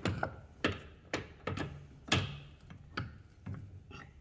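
Irregular metallic clinks and knocks, about seven in four seconds and some with a short ring, as a differential carrier is handled and shifted against the metal of a lathe. The loudest knock comes about two seconds in.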